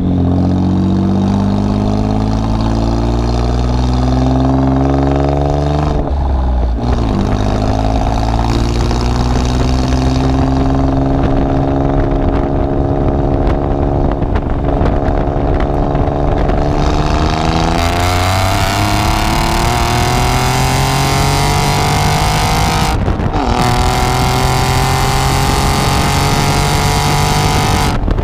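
Alfa Romeo Giulia Quadrifoglio's 2.9-litre twin-turbo V6 heard at the tailpipe through a catless downpipe and Capristo cat-back exhaust, accelerating with its pitch climbing. The pitch breaks at gear changes about six seconds in and again near 23 seconds, and a loud hiss of wind and road noise joins in the second half.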